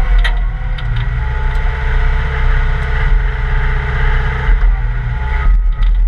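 Caterpillar 226 skid steer's diesel engine running steadily under load while the bucket works dirt, with a steady whine over the engine and a few sharp clicks.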